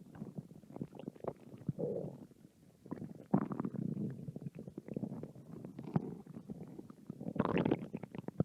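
An empty human stomach growling from hunger: irregular gurgles and quick bubbly pops, with longer rumbling gurgles about three seconds in and again near the end.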